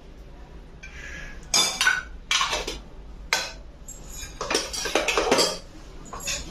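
Stainless-steel spoon clinking and scraping against steel bowls and a small steel lunch-box tin while gravy is served out: a few sharp clinks about a second and a half in, then a quick run of them around the five-second mark.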